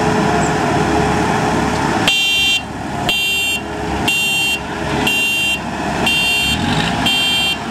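Combine harvester's diesel engine running steadily; about two seconds in, its reversing alarm starts, six high-pitched beeps about once a second, the sign that the machine is backing up.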